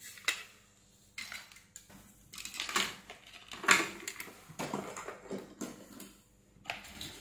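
Irregular clicks, taps and rustling as hands handle a small LED driver board and pull its wires over an aluminium plate, with the loudest knock near the middle.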